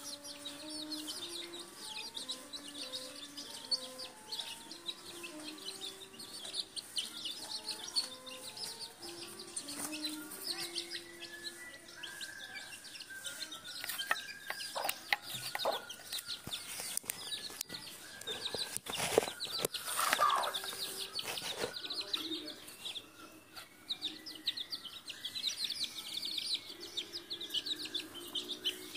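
Young chicks peeping rapidly and without pause, with a hen's low clucks underneath. A few sharp knocks come around the middle.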